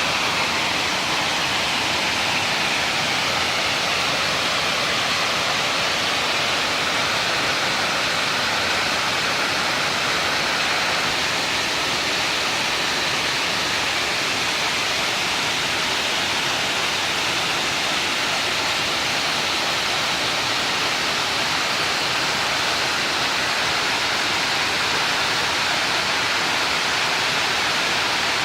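A waterfall's steady, loud rush of falling water.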